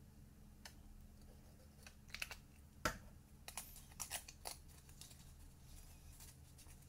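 Cardstock being handled and pressed together by hand: scattered light paper ticks and taps, with a cluster near the middle and the sharpest tap about three seconds in.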